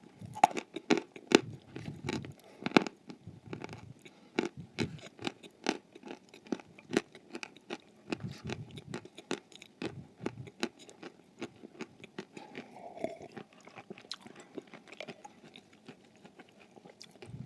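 Crunchy food being bitten and chewed: an irregular run of sharp crunches and crackles, loudest in the first few seconds.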